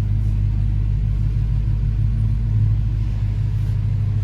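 Dodge Challenger Scat Pack's 6.4-litre HEMI V8 running at a low, steady idle rumble as the car creeps along, heard from inside the cabin. The steering click the owner is chasing does not stand out above the engine.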